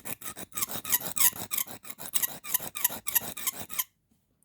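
Carbon steel pocket-knife blade stroked rapidly back and forth on the rough side of a sharpening stone: a quick, even, rasping scrape of several strokes a second, which stops abruptly near the end.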